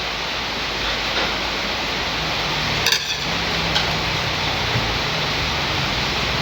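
Steady hiss of rain, with a low engine hum coming in about halfway through and a single sharp clink near the middle.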